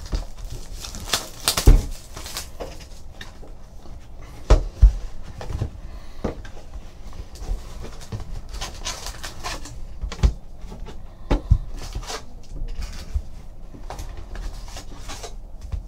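A trading card hobby box being unwrapped and emptied by hand: plastic wrap crinkling, the cardboard lid opened and foil card packs handled and set down, with several sharp knocks on the tabletop.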